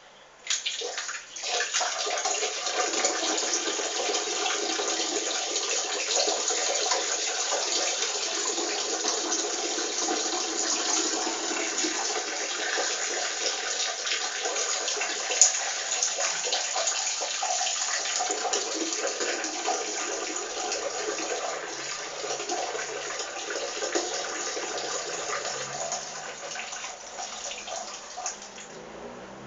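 A person urinating in a steady stream splashing into toilet water. The stream starts with a brief falter, runs evenly and tapers off near the end.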